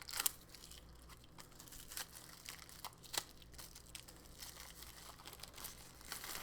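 Plastic shrink wrap being torn open and peeled off a boxed tarot deck: irregular crinkling and crackling, with a sharper snap about a quarter second in.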